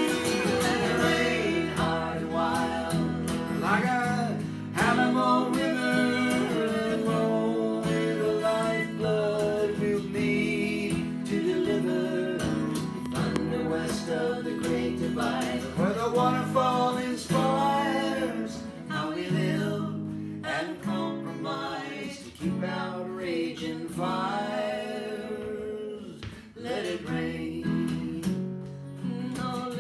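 Acoustic song: a strummed acoustic guitar with a melody line over it, gliding and bending in pitch.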